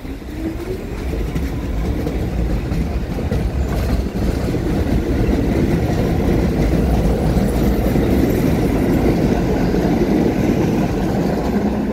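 Staten Island Railway R44 subway train pulling out and gathering speed, with a rising motor whine near the start. The loud, steady rumble of the cars' wheels on the rails builds over the first couple of seconds.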